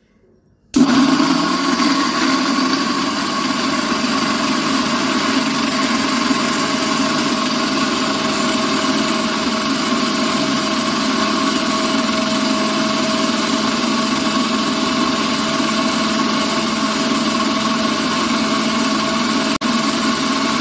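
Electric mixer grinder running at speed, blending soaked nuts, dates and apple pieces into a paste. It starts suddenly about a second in as a steady motor whine, with a brief dip near the end.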